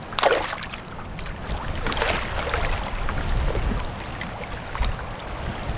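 Shallow seawater sloshing and splashing around a wading angler's legs as a snook is released by hand and swims off, with a few short splashes.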